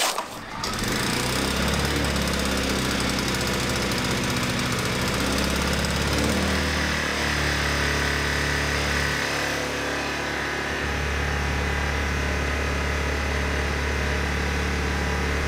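Predator 1400 inverter generator pull-started on choke, its small engine catching within the first second and then running steadily, its pitch shifting a couple of times as the speed settles.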